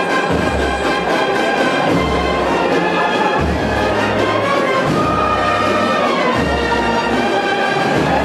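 Band playing a slow Holy Week processional march, with held brass chords, a melody line and low bass notes every second or so.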